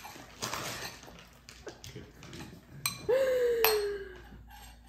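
Metal spoon scraping and clinking against a stoneware bowl as a toddler scoops out the last of her food. About three seconds in, a child's voice makes one long note that falls slowly in pitch.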